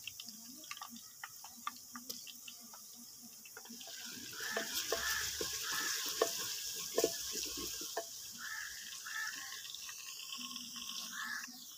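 A long-handled ladle stirring and scraping in a clay pot, with many small knocks against the pot, while the contents sizzle in hot oil over a wood fire. The sizzling hiss grows louder about four seconds in.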